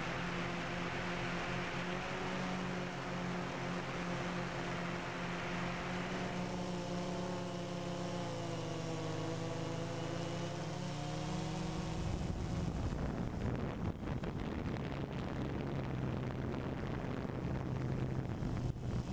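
DJI Phantom 2 quadcopter's four electric motors and propellers humming steadily, the pitch shifting twice as the drone manoeuvres. From about twelve seconds in, wind buffets the microphone with an uneven low rumble.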